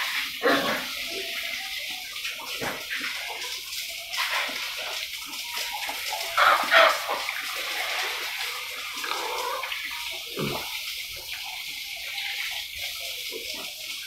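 Young pigs grunting and calling irregularly, loudest in a burst about halfway through, over a steady hiss of running water.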